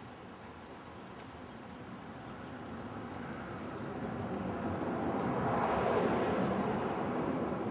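A passing vehicle whose noise swells gradually and peaks near the end, with faint high chirps every second or so above it.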